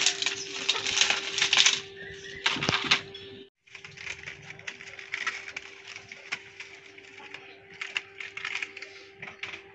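Dry sticks and stalks crackling and rustling as they are handled and set alight in a clay cooking stove. The crackling is dense and loud at first, cuts out briefly about three and a half seconds in, then goes on fainter with scattered snaps.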